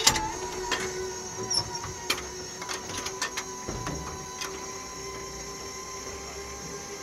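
Rollover convincer's drive motor turning the car cab: a steady mechanical whine, with sharp knocks and rattles over the first few seconds that then settle into the even whine.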